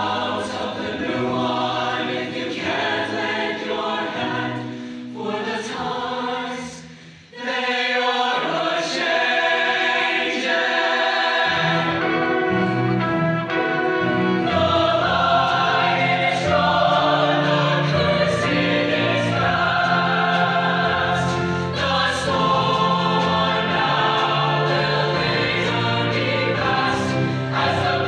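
Show choir singing a full-voiced song with live band accompaniment. The music drops briefly about seven seconds in, then comes back fuller, with a low bass line entering a few seconds later.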